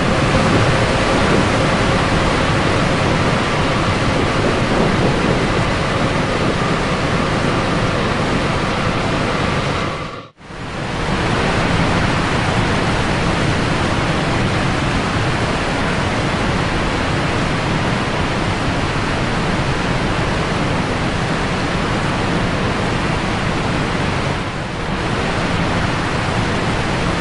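Steady rushing noise of wind and churning wake water heard aboard a moving boat. It cuts out for an instant about ten seconds in.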